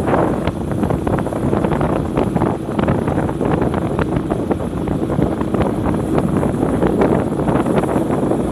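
Vehicle travelling along a road, its steady running and road noise mixed with wind buffeting the microphone, which adds many brief crackles.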